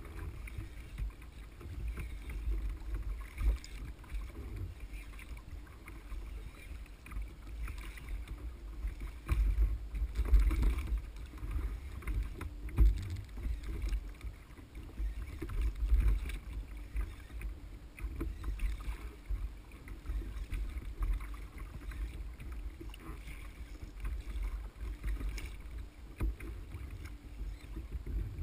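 Sea kayak on open ocean: water sloshing and slapping against the hull, with a low, uneven rumble of wind and water on the camera.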